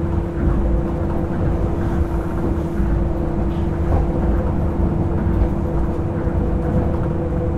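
Onboard running sound of a Hitachi-built Tokyo Monorail Series 1000 car with resistor control, cruising at a steady speed. It is a deep rumble from the rubber tyres on the concrete beam, with a hum held at one pitch.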